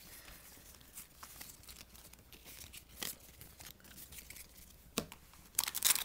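Soft ticks of trading cards being handled, then, near the end, loud crinkling and tearing of a foil card-pack wrapper being ripped open.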